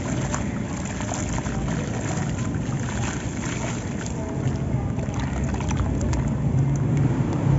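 Hands crumbling a dry grey gritty clump into a basin of water and then swishing through the muddy slurry: steady sloshing with many small splashes and grainy crackles, the sloshing growing heavier in the second half.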